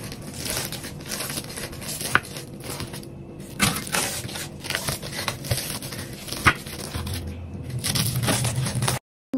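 Crisp, many-layered börek pastry crunching and crackling, with many sharp cracks; it stops abruptly near the end.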